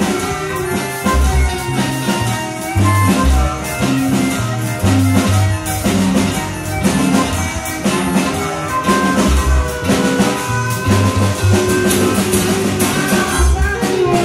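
Live blues band playing an instrumental passage: electric guitar and drum kit over a bass line, with a harmonica playing held notes.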